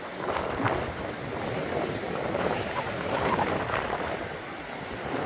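Wind buffeting the microphone over the wash of ocean surf on the beach, the noise swelling and easing.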